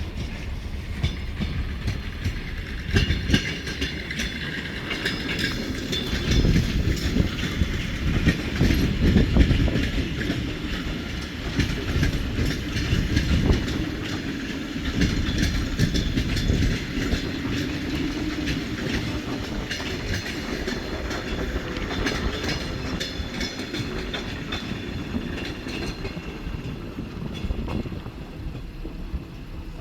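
ER9M electric multiple unit train running on the track, its wheels clattering rapidly over the rail joints over a heavy rumble, loudest a few seconds in.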